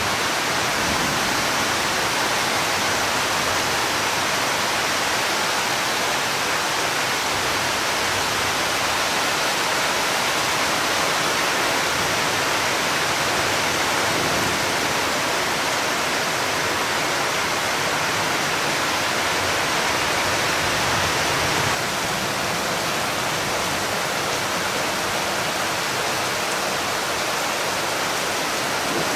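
Heavy rain falling steadily, a dense even hiss with no thunder; the level steps down slightly about three-quarters of the way through.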